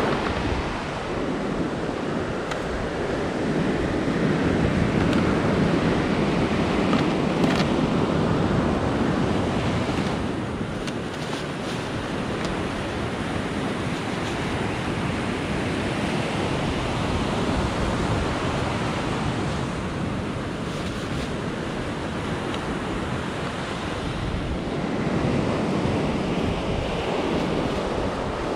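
Ocean surf washing onto a sandy beach, a steady rush that swells and fades in slow surges, with some wind noise on the microphone.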